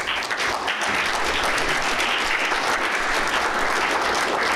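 Audience applauding, a dense steady clapping of many hands.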